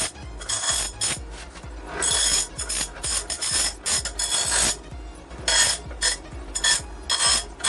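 Bench grinder wheel grinding the end of a steel tube in repeated short passes, each contact a rasping hiss with a high ring, with quieter gaps between them as the tube is pulled away and set back on.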